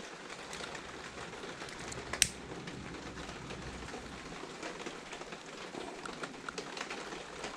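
A lighter flicked once about two seconds in, a single sharp click followed by a faint rush of flame, to shrink heat-shrink tubing over a wire joint. Low crackling noise runs underneath.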